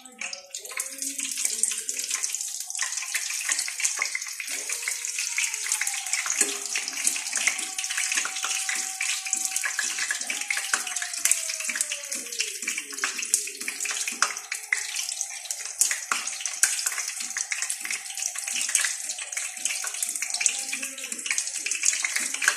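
Hot oil sizzling steadily with frequent sharp crackles and pops as dove meat fries.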